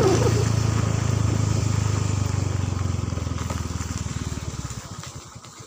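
Small motorcycle engine running steadily, then easing off about four seconds in, its firing pulses slowing as it drops toward idle.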